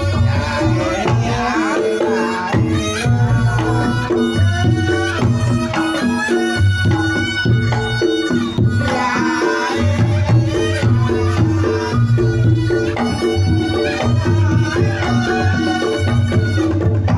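Reog Ponorogo gamelan music (tabuhan reog) played loud: a wavering slompret (reed shawm) melody over kendang drumming and the steady repeated tones of kethuk and kenong gongs.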